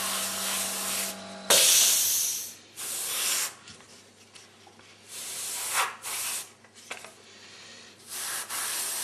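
Airbrush spraying paint in short hissing strokes, about five of them, each a second or less with pauses between; the loudest starts about a second and a half in. A low steady hum runs under the first second and a half, then stops.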